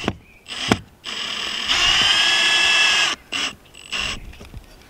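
Cordless Milwaukee drill driving a screw into a shingled roof. A short burst comes first, then a steady motor whine for about two seconds that steps up in pitch partway through, then two brief bursts as the screw is snugged down.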